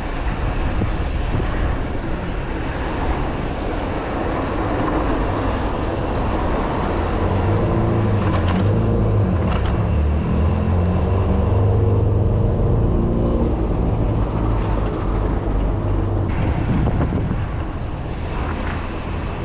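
Road traffic heard from a bicycle riding down a city street: car and bus engines running close by, over a steady low rumble. Loudest about halfway through, easing off near the end.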